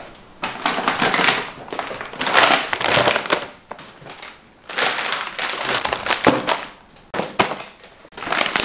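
Plastic bags of frozen food crinkling and rustling as they are pulled out of a freezer and handled, in several bursts with short pauses between.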